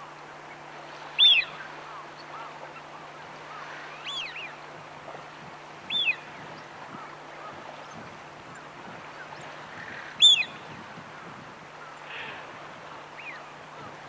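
Eurasian wigeon drakes whistling: short, high, clear "whee-oo" calls that rise and then fall. Four loud ones come a few seconds apart, with a few fainter ones between them.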